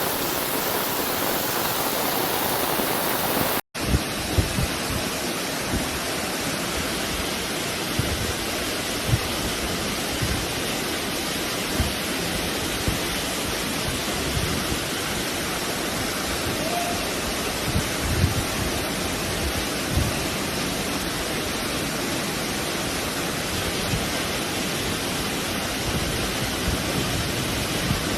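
Heavy rain and rushing floodwater: a steady, loud wash of noise, broken by a cut about four seconds in, with scattered low knocks.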